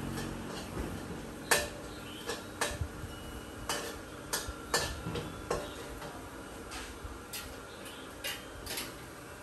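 A metal cooking utensil clanking against a wok during stir-frying: about a dozen sharp, irregular strikes, the loudest about a second and a half in, over a steady hiss.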